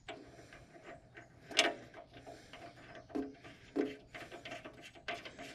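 Scattered light metallic clicks and knocks from hands working a bolt and nut on the planter's steel marker mount, a handful of separate taps, the loudest about a second and a half in.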